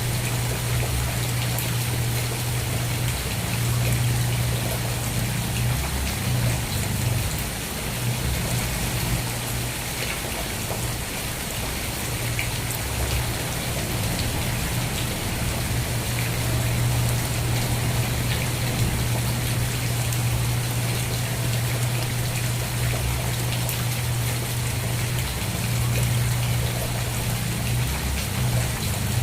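Steady rain falling, a dense even hiss of drops on surfaces, with a low rumble underneath.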